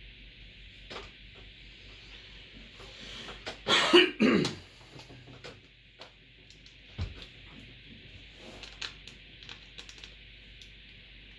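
A man coughs once, loud and harsh, about four seconds in. Scattered light clicks and taps of hands and a screwdriver working at a PC case and motherboard run through the rest, over a steady hiss.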